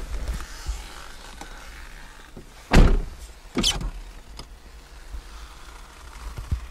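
Two short knocks, under a second apart near the middle, the first the louder, inside a car cabin over a low steady rumble.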